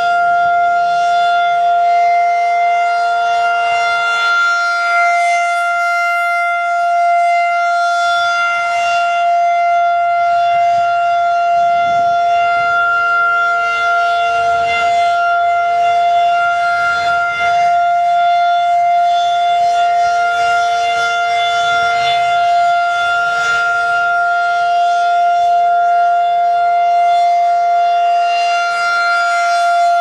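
Federal Signal 2001-SRN rotating tornado siren sounding a steady, unwavering tone during a scheduled test, its loudness swelling and easing slightly as the horn turns.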